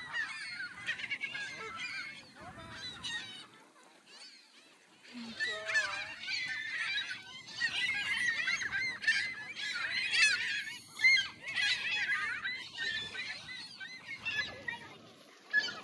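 A large flock of gulls calling all at once, a dense clamour of overlapping squealing cries. It eases off briefly about four seconds in, then builds again.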